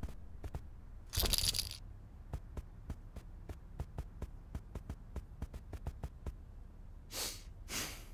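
Cartoon foley of a small terrier: a short rustling thump about a second in, then a quick run of light ticking steps, several a second, like claws on a hard floor as the dog trots off. Near the end come two short breathy puffs.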